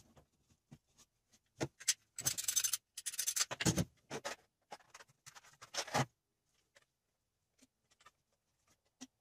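Tools and parts being rummaged through and handled in a plastic toolbox: a busy run of clicks, scrapes and rattles for several seconds, then only a few scattered small clicks.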